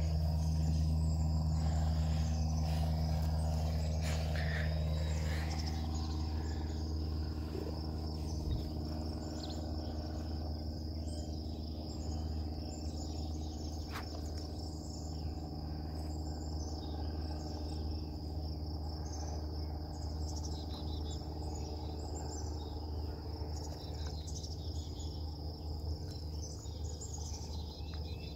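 Outdoor insect chorus with a steady high trill, with birds chirping now and then over a steady low hum.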